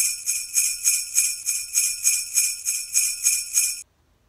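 Sleigh bells shaken in a steady rhythm, about three shakes a second, cutting off suddenly near the end.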